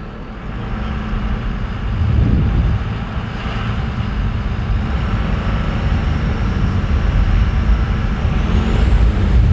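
2nd gen Dodge Ram Cummins diesel truck driving, heard from inside the cab: a low engine rumble with road noise that grows louder as the truck picks up speed. A faint high whistle rises and falls near the end.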